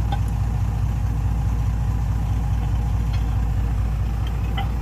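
Excavator's diesel engine running steadily at a low rumble, with a few faint clicks over it.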